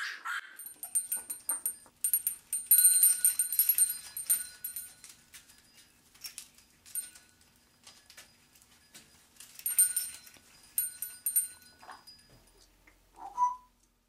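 African grey parrot on a play gym full of hanging toys: two spells of rattling and clinking with a bright ringing, the toys knocked about as it climbs and flaps, and a short call near the end.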